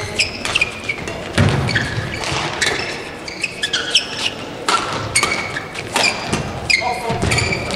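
Badminton doubles rally: quick sharp cracks of rackets hitting the shuttlecock, with short high squeaks of shoes on the court mat and the thuds of players' landings, echoing in a large empty hall.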